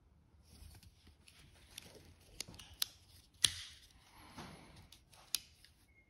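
Leatherman Charge TTI Plus titanium multitool being handled, its tools swung open and shut with a few sharp metal clicks as they snap into place, and faint rubbing of the handles in the hands between them. The loudest click comes about halfway through.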